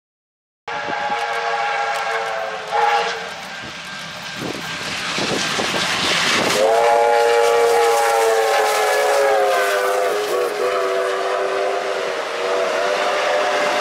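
Victorian Railways R class steam locomotive whistle blowing long, loud blasts over the rush of the passing train. It starts just under a second in, weakens for a few seconds, and then sounds strongly again from about halfway through.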